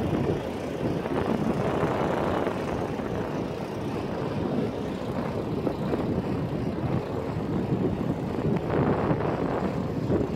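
Gusty wind buffeting the microphone over the running diesel engine of a semi truck.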